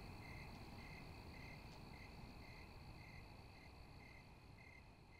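Faint crickets chirping: short chirps about twice a second over a steady high insect trill, slowly fading out near the end.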